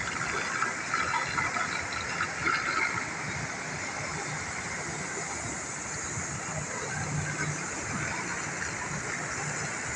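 Steady rush of running water from a shallow paved water feature, a thin sheet of water flowing over stone tiles into an edge grate.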